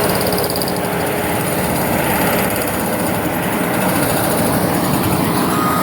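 Heavy construction equipment engine running steadily, with a single high beep starting near the end.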